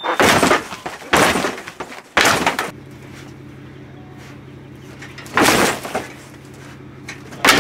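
Five loud cracking crashes of a wood-framed cardboard shipping crate being kicked and shoved from inside as its panels strain to give way. A steady low hum starts about three seconds in.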